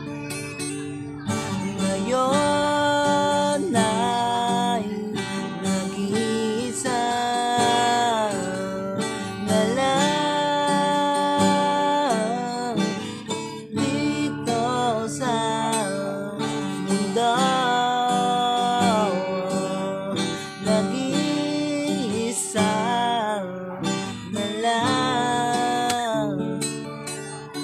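A man singing a song while accompanying himself on an acoustic guitar, strumming steady chords under the sung melody.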